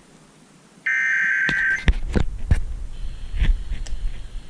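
An EAS SAME header burst: about one second of shrill, buzzing two-tone digital data played over a radio, one of a series of identical bursts that open an emergency alert. It is followed by a run of irregular clicks and low thumps.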